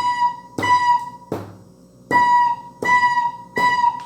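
Soprano recorder playing the note B in short tongued notes on an even beat, three notes then a silent beat, like a drum pattern. Each note starts with a sharp percussive hit, and one hit falls on the rest with no note after it.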